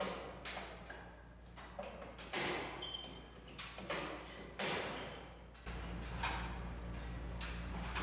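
Irregular knocks and clatters from hands working on parts inside a ceiling-mounted cassette air-conditioner unit, about one every second. A steady low hum starts about two-thirds of the way through.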